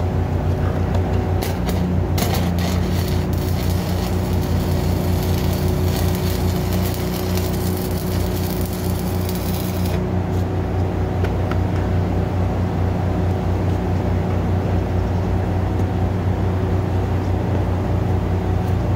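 Stick-welding arc crackling and hissing as bridging is welded to steel joists, starting with a few sharp pops about two seconds in and cutting off abruptly about ten seconds in. Over a steady engine hum that runs throughout.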